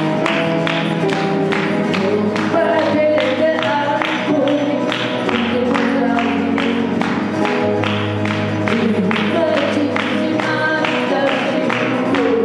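Live pop music played on an electronic keyboard and an acoustic guitar, with held keyboard notes over a steady beat.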